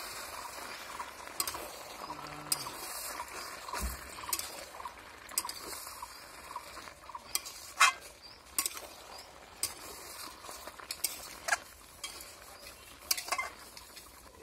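Metal spatula scraping and knocking against a steel kadai as chunky chicken and potato curry is stirred, irregular clinks about once a second, the loudest about 8 seconds in, over a low steady sizzle of the curry cooking.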